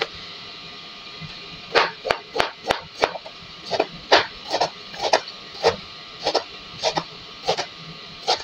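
A kitchen knife chopping cabbage on a plastic cutting board: a series of sharp chops, each blade stroke cutting through the leaves and striking the board. The chopping starts about two seconds in, quick at first and then steady at about two chops a second.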